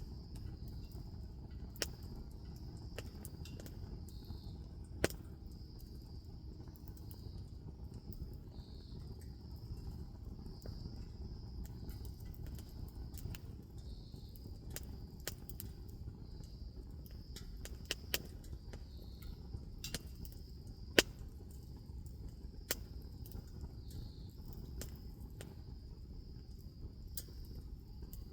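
Wood bonfire crackling, with scattered sharp pops over a low steady rumble of the burning; insects trill steadily and high in the background.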